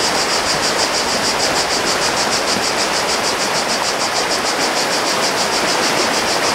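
Fast-flowing river rushing through rapids over rocks, a loud steady rush of water. High above it, insects shrill in a quick, even pulse.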